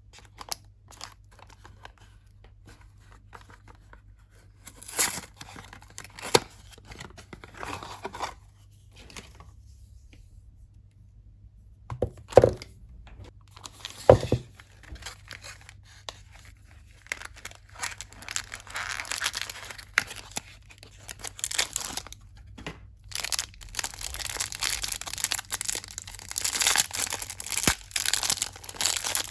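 Hands unwrapping soap bars: wrappers crinkling and tearing, with light rustles and clicks at first and denser, louder crinkling in the second half. Two solid thuds come partway through.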